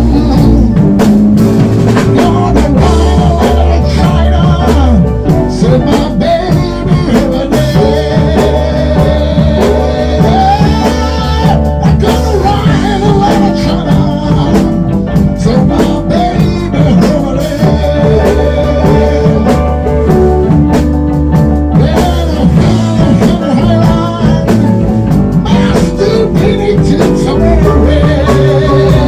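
Blues band music: guitar over bass and drum kit, played continuously at a steady tempo.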